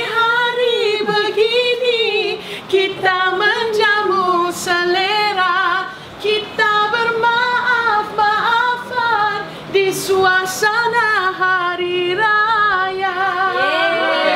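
A woman singing a Hari Raya song unaccompanied, holding long notes that waver in pitch.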